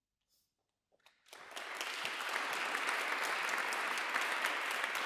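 Audience applause at the end of a performance. It breaks out of near silence a little over a second in, swells within about half a second, then carries on as steady clapping.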